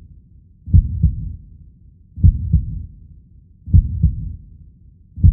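Heartbeat sound effect: a deep double thump, lub-dub, repeating slowly about every second and a half.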